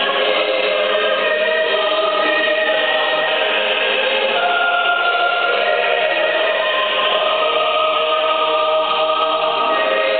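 Mixed choir of men's and women's voices singing in harmony, holding long chords that change every second or two.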